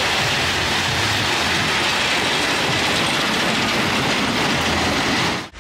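Small funfair roller coaster's cars running along their steel track: a steady noise of wheels on rails that drops out briefly near the end.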